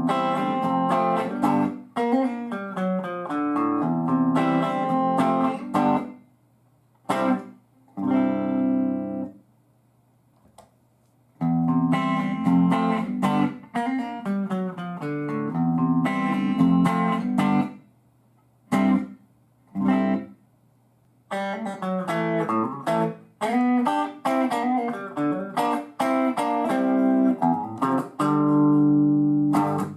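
Electric guitar played through a Marshall DSL valve combo amp: phrases of ringing chords and single notes, with a few short silent pauses between them.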